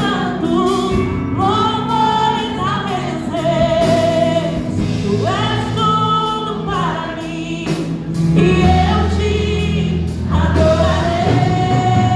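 Worship music: voices singing a slow melody with vibrato over a band with steady bass notes.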